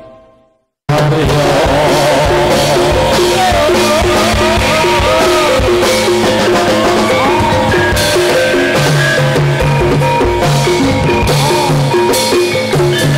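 An intro jingle fades out and, after a moment of silence, drum-led Javanese gedrug dance music starts about a second in: a steady drum beat under a repeating low bass note, with a wavering melody line over it.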